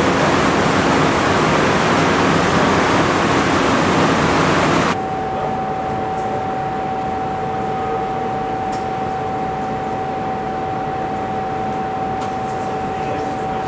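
Steady hiss of air-handling ventilation in a cleanroom, which cuts off abruptly about five seconds in. It gives way to a quieter steady machinery hum carrying one held tone, with a few faint clicks.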